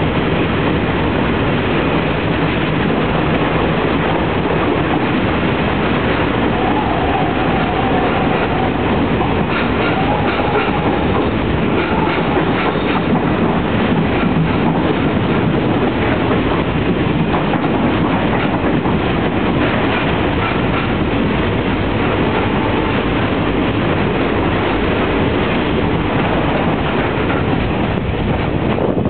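Passenger train running along the track, heard from on board: a steady loud rumble with the clickety-clack of wheels over the rails. Faint wheel squeals come through a few times.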